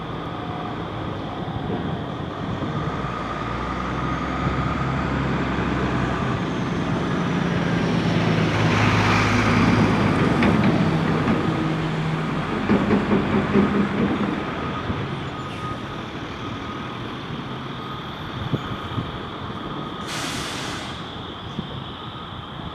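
A heavy vehicle, such as a truck, passing on the road: its engine builds to its loudest about nine or ten seconds in and then fades. A short hiss follows near the end.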